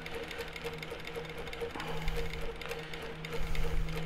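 Longarm quilting machine running and stitching steadily with an even hum, sewing long basting stitches through the quilt layers along its edge.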